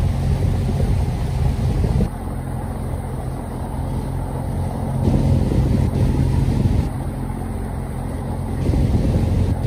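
Boat engine running steadily, a low drone, heard from on board.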